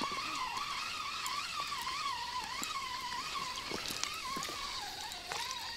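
Spinning reel being cranked steadily: a whirring whine that wavers up and down in pitch with each turn of the handle, as a feeder rig with a hooked crucian carp is wound in.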